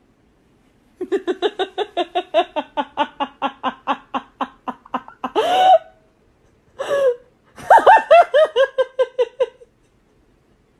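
A person laughing hard: a fast run of ha-ha pulses for about four seconds, then a couple of high squealing cries, then a second run of laughter that falls in pitch and trails off.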